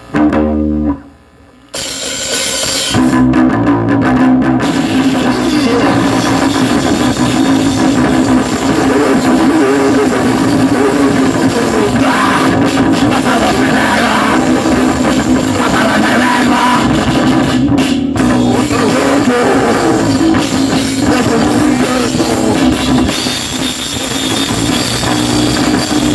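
Loud, heavily distorted live recording of an underground noise/rock band, with fuzzed guitar and drums in a dense wall of sound. The band kicks in abruptly about two seconds in, after a brief low hum.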